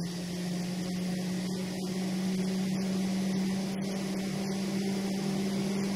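Jet aircraft engine running steadily: an even rushing hiss with one low, steady drone note, slowly growing louder.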